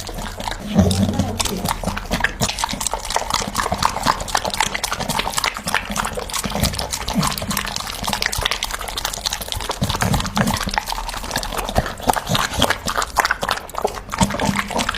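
Dog eating: rapid, irregular wet chewing and crunching clicks, continuing without pause.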